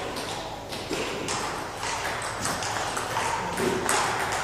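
Table tennis ball clicking against tables and bats: quick, irregular sharp knocks, several a second, as in rallies.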